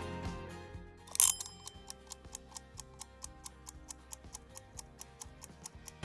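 Background music fades out, then a short swish about a second in, followed by a stopwatch ticking sound effect, even ticks at about five a second.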